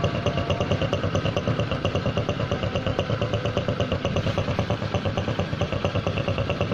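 Honda Supra X 125's single-cylinder four-stroke engine idling, with a steady, even pulse.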